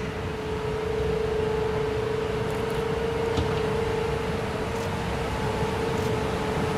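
Vintage SBB electric locomotive approaching slowly, its steady electrical hum over a low rumble, getting a little louder in the first second. A single click about three and a half seconds in.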